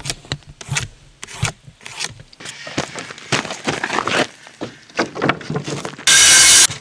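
Plywood siding sheets scraping and knocking against each other and against the wooden pallets they lie on. About six seconds in, a cordless drill runs for about half a second, the loudest sound.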